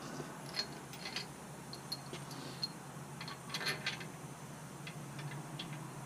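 Light metallic clinks and ticks as parts are handled inside a bare Gen 3 Hemi engine block, with a quick cluster of them about three and a half seconds in.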